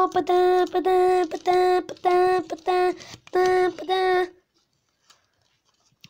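A child's voice chanting one syllable on a single steady note, about eight times at roughly two a second, imitating a washing machine's sound; it stops about four and a half seconds in.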